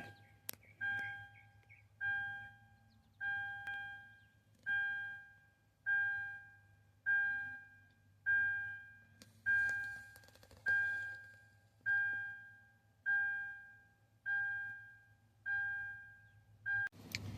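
An electronic chime dinging steadily, about one ding every 1.2 seconds, each ding starting sharply and fading out.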